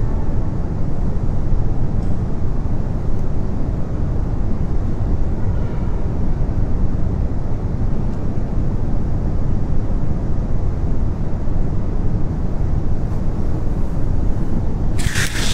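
Steady low rumbling background noise, even and unbroken, with a brief sharp hiss-like burst near the end.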